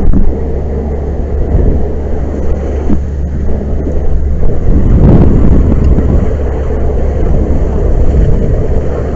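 Loud, steady rumbling roar of a burning gas-fed tank car training fire and the hose streams played onto it. The roar swells briefly about five seconds in.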